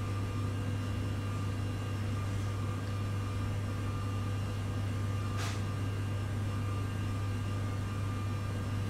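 Steady low machine hum with faint steady tones above it, at an even level. A single short, faint click about five and a half seconds in.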